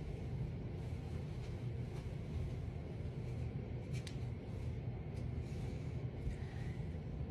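Quiet room tone: a steady low hum with a few faint ticks, and no music.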